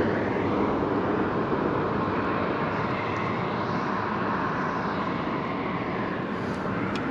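A steady engine drone that slowly fades.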